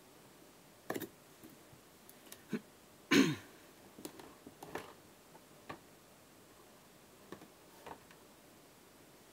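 Scattered handling noises: a few light clicks and knocks as a folding knife works on a football boot's laces and is then set down on carpet. One louder short sound about three seconds in stands out from the rest.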